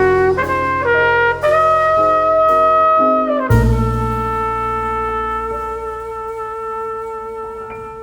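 Background music: a melody of a few stepped notes, then a long held note from about three and a half seconds in that slowly fades.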